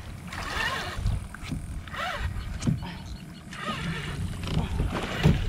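A person's short, strained vocal noises while reeling against a big hooked fish on a bent rod, over a steady low rumble of wind and water.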